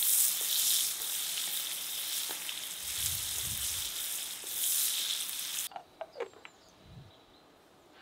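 Zucchini strips sizzling as they fry on a wide steel pan over a fire, stirred with a wooden spatula. The sizzle cuts off suddenly about two-thirds of the way in, leaving a few light clicks and knocks.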